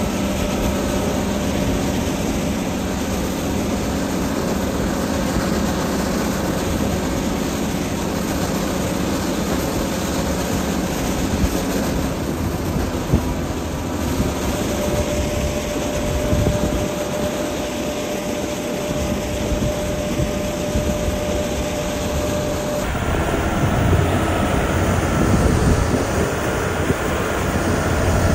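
Heavy diesel road-construction machinery running steadily under load, a dense engine rumble with a thin steady whine through part of it. The sound changes suddenly near the end.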